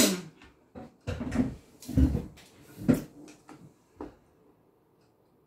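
Dull thumps and knocks of a wooden chair and table as someone gets up from the table and leans on it, about half a dozen over three seconds. They stop about four and a half seconds in.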